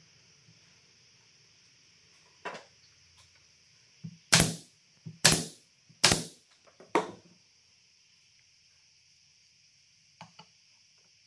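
A series of sharp knocks: one light knock, then four loud ones about a second apart near the middle, and two faint taps near the end, each with a short ringing tail.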